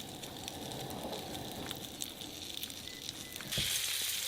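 Light crackling and ticking, then about three and a half seconds in a loud sizzle starts suddenly: freshly caught trout frying in a pan.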